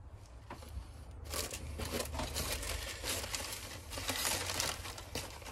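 Paper wrapping crinkling and rustling as a potted cactus is unwrapped by hand, picking up about a second in and going on in quick, irregular crackles.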